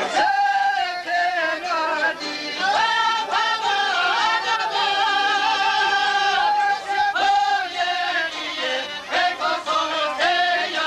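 A man singing an Albanian folk song in long, high, drawn-out notes that waver in pitch, with long-necked lutes plucked beneath. The held notes break off and start again about two seconds in and again near seven seconds.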